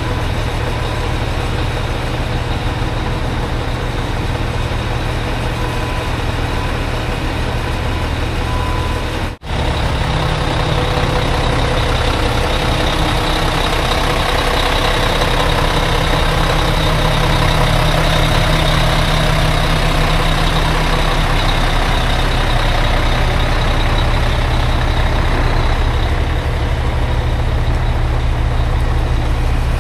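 Heavy diesel truck engine idling steadily with a deep hum. The sound drops out for an instant about nine seconds in and comes back a little louder.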